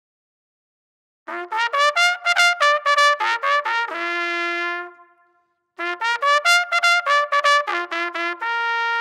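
Short trumpet jingle: two phrases of quick notes, each ending on a long held note, starting about a second in with a brief break in the middle.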